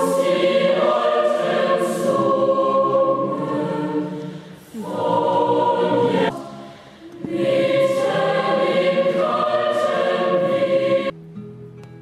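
A choir singing in long held phrases, with two brief breaks between them. The singing cuts off suddenly about a second before the end, and quieter plucked guitar notes begin.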